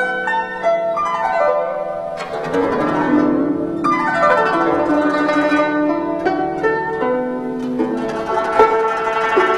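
Guzheng playing a fast passage of plucked and tremoloed notes, with two sweeping glissandi across the strings about two and four seconds in.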